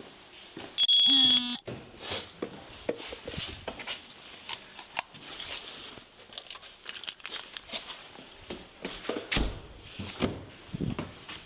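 A loud electronic beep, several pitches together, sounds once for under a second about a second in. It is followed by rustling, crinkling and scattered clicks and knocks of things being handled.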